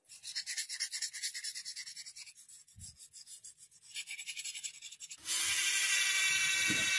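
Quick abrasive rubbing strokes on a workpiece, several a second, stopping and starting. About five seconds in, a power tool starts and runs steadily with a high whine.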